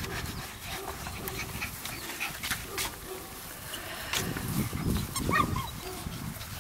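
Labradoodle puppies playing and scuffling about on grass, with one short high yip about five seconds in.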